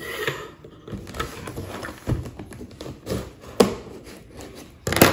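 Cardboard box being opened and handled on a wooden table: scattered taps, scrapes and rustles, with a sharp knock near the end.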